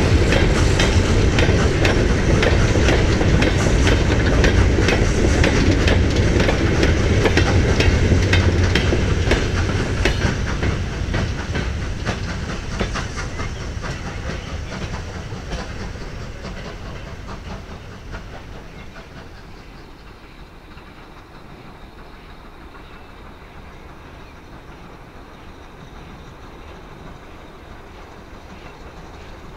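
A freight train of four-wheeled steel mineral wagons rolling past, the wheels clattering over the rail joints. Loud at first, it fades away from about ten seconds in and is down to a low steady background by about twenty seconds.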